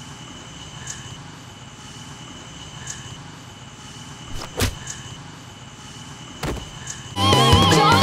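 Low steady background noise with a faint, steady high-pitched tone and two sharp knocks about two seconds apart. Music with a singing voice starts near the end.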